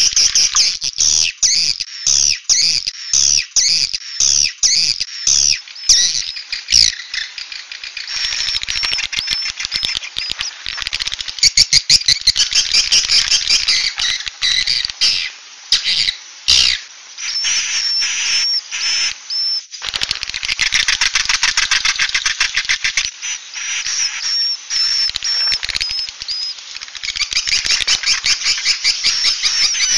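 Edible-nest swiftlets twittering: dense, overlapping runs of fast high chirps and dry clicking trills. It is a 'suara inap' roosting-call recording, the kind played to draw swiftlets into a nesting house.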